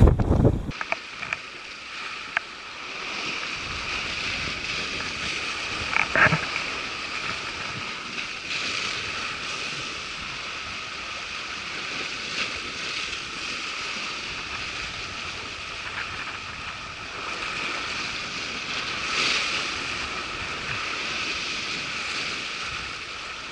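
Sea surf washing against a rocky shore, a steady rush with a few short knocks. Wind buffets the microphone with a low rumble for the first moment.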